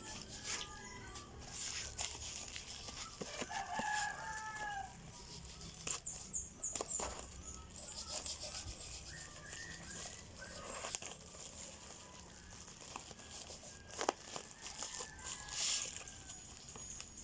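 A rooster crowing once, about four seconds in, with a few clicks and rustles of a package being handled around it.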